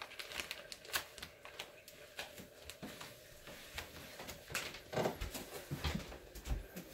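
Light, irregular clicks and knocks of small objects being handled, a few a second, with a slightly louder knock about five seconds in, over a faint steady hum.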